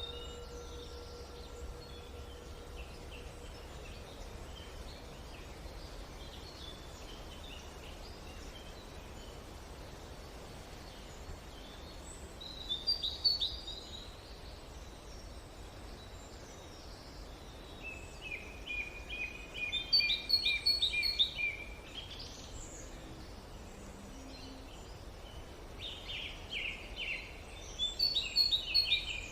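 Small songbirds singing in short bursts of quick repeated chirps and trills over a steady background hiss, loudest about two-thirds of the way in and again near the end. A singing bowl's ringing tone fades away in the first few seconds.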